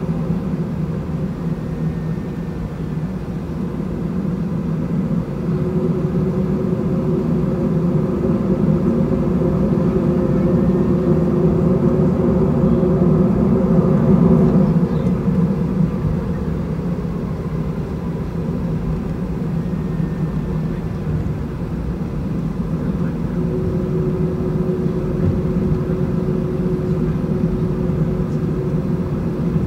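Airbus A320 cabin noise while taxiing, heard from a window seat over the wing: the CFM56-5A engines run at low taxi thrust as a steady rumble with a faint hum. The noise swells gradually to about mid-way, then eases off.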